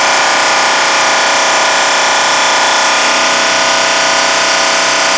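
Belt sanding and polishing machine running steadily, a constant whine over a dense hiss.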